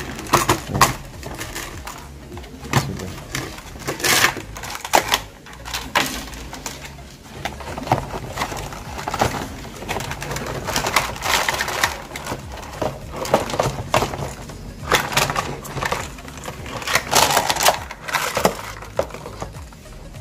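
Hollow red plastic planter tiers knocking, clicking and scraping against each other as they are handled and fitted onto one another, in irregular clusters of sharp knocks every second or two.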